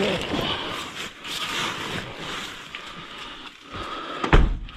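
Handling noise of gear being moved and loaded, with scattered knocks and one heavy thump about four seconds in.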